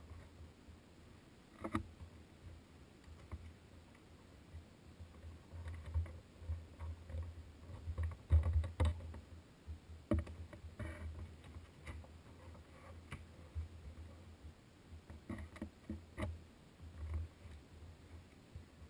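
Hands handling and pressing paper pages of a small book on a desk: faint, irregular soft bumps and rubbing, with a few short sharp taps scattered through, the loudest about eight to ten seconds in.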